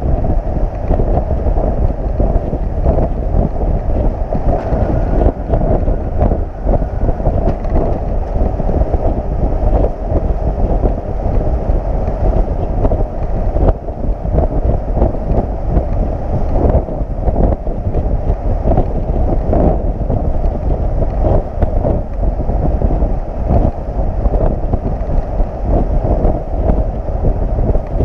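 Steady wind rush buffeting the camera microphone, over the low rumble of a flatbed tow truck travelling at highway speed.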